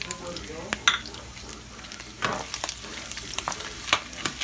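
Diced pork and chopped garlic sizzling in a frying pan while a metal spoon stirs them, with a few sharp scrapes and clinks of the spoon against the pan.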